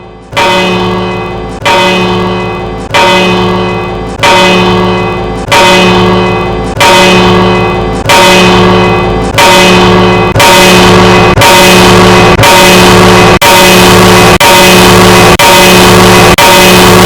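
A single bell struck over and over at the same pitch, about once a second, each strike louder than the last. From about ten seconds in it is so loud that it is clipped and distorted, the strikes running into one continuous ring.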